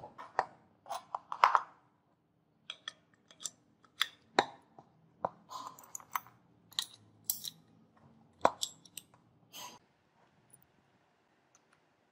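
Refinished wooden shotgun stock and steel action parts handled and fitted together, knocking and clicking against each other and the table. The sharp, irregular clicks and taps stop about ten seconds in.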